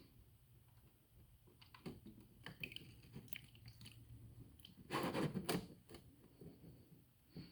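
Light clicks and taps of hand tools and parts being handled at a motorcycle's oil drain plug, then a short, louder clatter about five seconds in.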